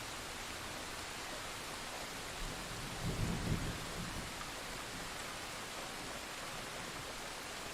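Steady heavy rain hiss from a thunderstorm sound effect, with a brief low thunder rumble about three seconds in.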